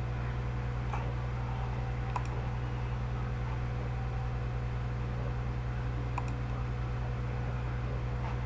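A few faint computer mouse clicks, about a second, two seconds and six seconds in, over a steady low electrical hum.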